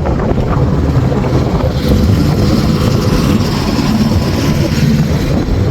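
Vehicle engine running with an irregular low rumble, and a rushing hiss that rises about two seconds in and fades near the end.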